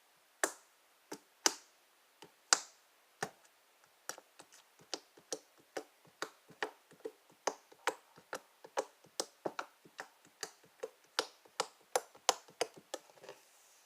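Slime being poked repeatedly with one finger, giving a string of sharp, sticky clicks and pops. They come a few at a time at first, then steadily at about three a second from about four seconds in.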